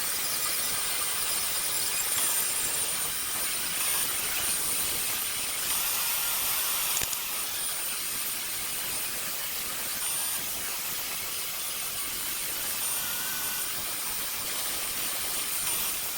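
Handheld hair dryer running steadily: an even rushing blow of air with a faint high-pitched whine.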